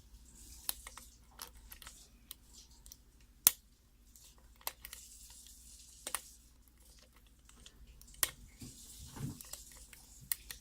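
Lock pick and tension wrench working in the keyway of a 6-pin Master Lock lockout-tagout padlock during single-pin picking: scattered small sharp metallic clicks and scrapes, the loudest about three and a half seconds in. A soft low rub of handling comes near the end.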